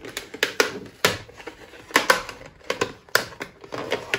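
Irregular sharp clicks and taps of hard plastic, about a dozen, as a stick-on wing mirror cover is handled against the mirror housing.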